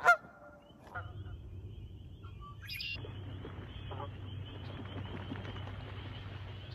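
Canada geese honking: one loud call at the very start and a softer one about a second in. Over it runs a thin, high, wavering bird trill, and from about three seconds in a steady hiss joins it, stopping near the end.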